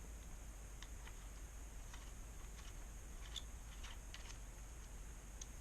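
Faint, scattered light clicks and ticks of small screws and parts on a polymer pistol conversion-kit chassis being handled and refitted, over a steady faint room hum.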